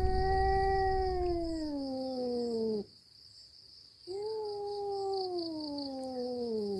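A cat giving two long drawn-out meows, each sliding down in pitch over about three seconds, the second starting about four seconds in. Insects chirr steadily behind.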